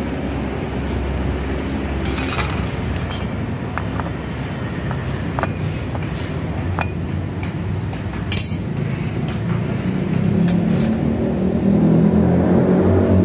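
Scattered metal clinks and clanks as a scooter's CVT front drive pulley face, with its starter ring gear, is handled and slid onto the crankshaft. Under them a motor engine hums steadily, growing louder over the last few seconds.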